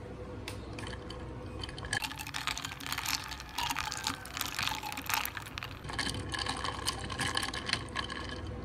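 Ice cubes clinking and rattling against a glass jar of iced chocolate milk as the drink is stirred with a straw, in two spells of rapid clicks with a short pause between.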